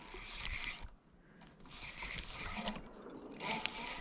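Fishing reel being cranked to retrieve a cast lure, turning in three spells with brief pauses between them.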